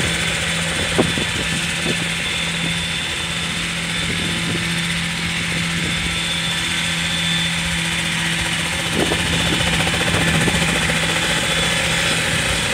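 Unmanned single-rotor helicopter hovering, its rotor and engine running with a steady hum that grows slightly louder about nine seconds in.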